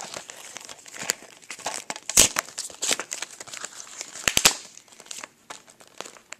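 Packaging crinkling and rustling as it is handled by hand. It comes in irregular crackles, with louder ones about two seconds in and just past four seconds, and dies down near the end.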